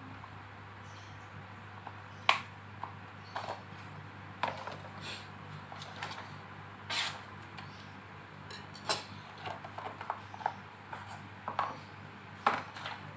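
A steel knife and its leather sheath being handled: scattered clicks and taps of the blade, with a few short rustles of a paper sheet, over a steady low hum.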